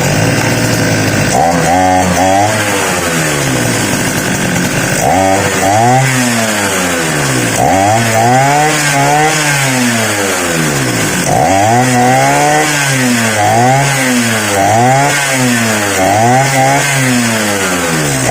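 Two-stroke grass cutter engine running after a carburetor cleaning and fuel-pump priming, the engine that would not start now starting and running. It is revved up and down over and over, steadier for the first few seconds and then about once every second and a half to two seconds.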